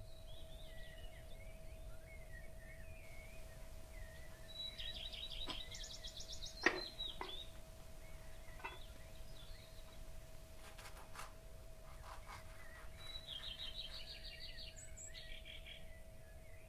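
Birds chirping, with two rapid trilled calls, over a faint steady hum and low background noise; a sharp click comes about two-thirds of the way in.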